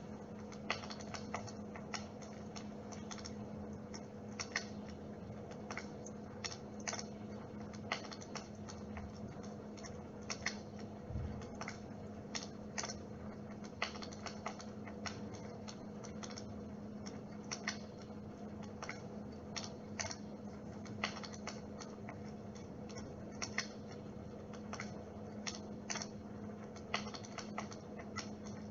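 Dimplex water-mist electric fire running: a steady low hum with irregular sharp crackling clicks, several a second, like a wood fire.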